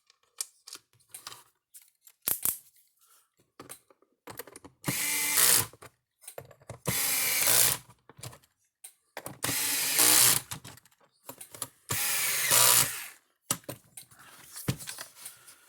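Cordless drill/driver running in four bursts of about a second each, driving in the screws that hold the charger's cover on, with small handling clicks between the bursts.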